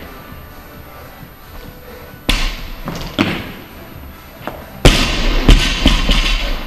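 Barbell loaded with bumper plates dropped onto a lifting platform. There are two lighter knocks near the middle, then a loud landing about five seconds in, followed by several bouncing thuds.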